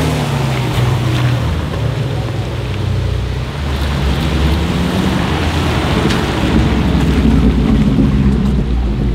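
A Ferrari 458 Spider's V8 passing and pulling away at the start, its note falling, then a tuned Audi RS6 Avant (C7) with an Akrapovic exhaust rumbling past with its twin-turbo V8, the rumble growing near the end. Tyres hiss on the wet road throughout.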